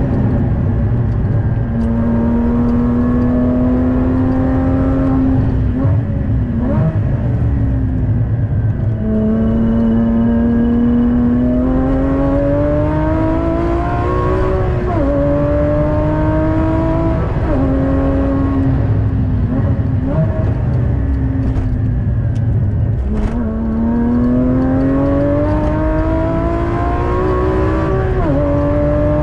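Porsche Cayman GT4's naturally aspirated flat-six engine heard from inside the cabin while lapping a circuit. The engine pitch climbs steadily under acceleration, then drops sharply at gear changes and braking several times, over steady road and wind rumble.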